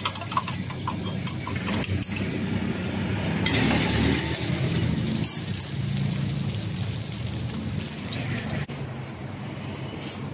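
Beaten egg poured into hot oil in a wok, sizzling loudly for a couple of seconds from about three and a half seconds in, after a few metal clinks of the spatula against the wok at the start. A low steady rumble runs underneath.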